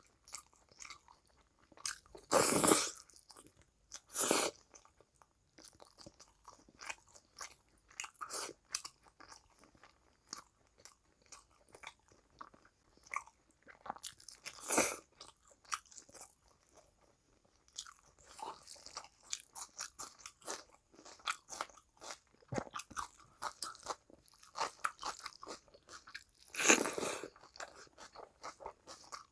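Close-miked eating by hand: steady chewing and wet mouth clicks, with fingers working rice and curry, and four louder crunchy bites spread through.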